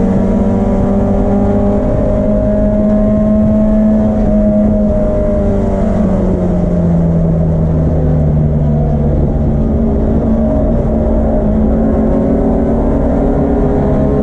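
Vintage BMW race car's M10 four-cylinder engine running hard on track. Its pitch climbs slowly for about four seconds, falls away over the next few seconds as the revs drop, then holds steady.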